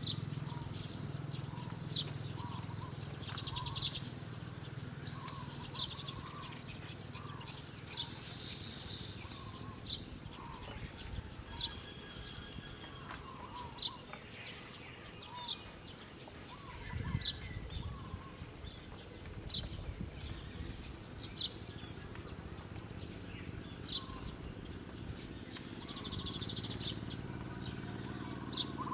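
Wild birds calling: short, sharp high chirps every second or two, with softer, lower notes in between. A steady low hum sits underneath, with a brief low rumble about halfway through.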